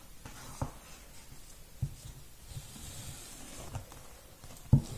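Hand saddle-stitching of a leather slipper with two needles and cream thread: faint rustle of thread drawn through the leather, with a few light handling knocks against a wooden table, the loudest near the end.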